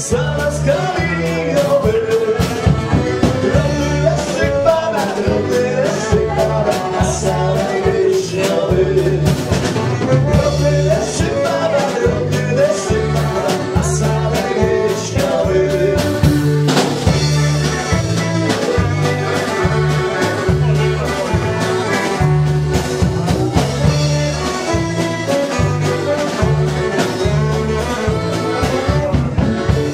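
Band music with singing, guitar and a steady drum-and-bass beat.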